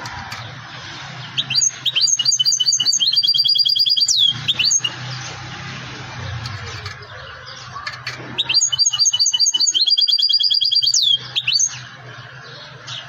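European goldfinch singing two phrases a few seconds apart. Each is a fast run of repeated high notes lasting about three seconds, ending in quick downward slurs.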